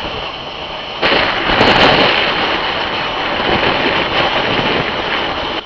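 Wind buffeting a microphone held out of the window of a moving train: a loud, crackling rush that starts suddenly about a second in, over the running noise of the train.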